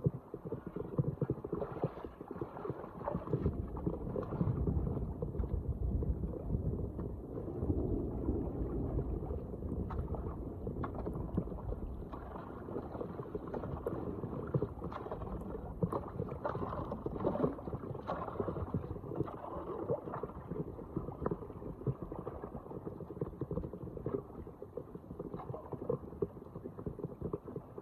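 Floodwater rushing and gurgling down a street storm drain, a continuous churning with small splashes running through it.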